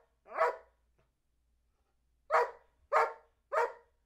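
Old English Sheepdog barking single barks on cue as a counting trick: one bark, a pause of nearly two seconds, then three barks about half a second apart.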